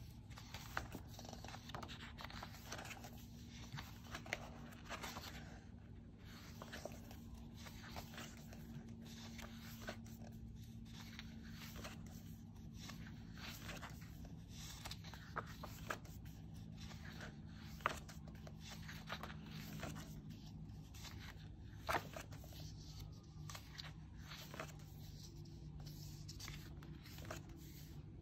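Pages of a paperback photo book being turned and smoothed by hand: paper rustling and sliding, with a few sharper page snaps. Under it runs a faint, steady low hum.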